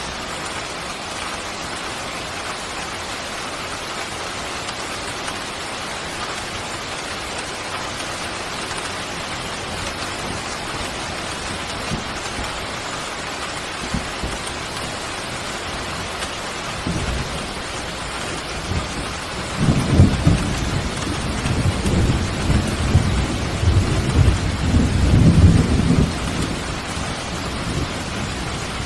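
Steady rain falling, with a roll of thunder that starts about two-thirds of the way in, rumbles loudest for several seconds, then fades out near the end.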